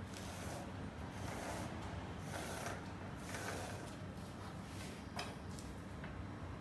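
Pencil scratching on lampshade paper as a line is ruled along a ruler, in a series of short strokes, with a small click about five seconds in.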